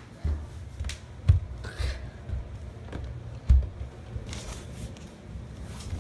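Muffled footstep thuds at an uneven pace, mixed with bumps and clicks from a handheld camera being carried. There is a soft rustle about four and a half seconds in.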